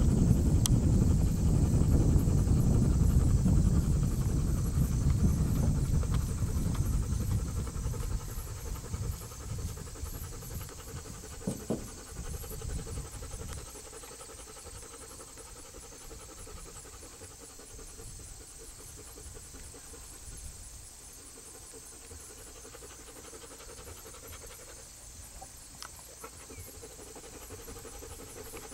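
Tennessee Walking Horse gelding's hoofbeats on grass as it gaits under a rider, loud at first and fading out about halfway through, leaving a faint steady high-pitched hum.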